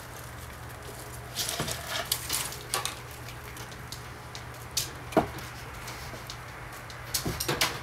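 Kitten's claws catching and scratching on a bamboo blind, the slats rattling and clicking in scattered bursts over a low steady hum.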